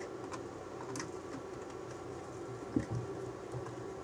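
Light clicks and taps of small parts of an external hard-drive enclosure being handled during reassembly, with one sharper knock a little under three seconds in, over a steady low hum.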